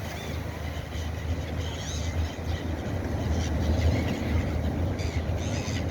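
Birds calling in short chirping calls, around the middle and again near the end, over a steady low rumble.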